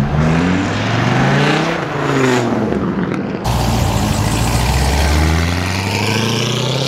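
Cars accelerating hard away from the roadside. First a car's engine revs up twice as it pulls away. After a sudden cut, a C7 Corvette's V8 accelerates past with a strong low note that rises steadily in pitch.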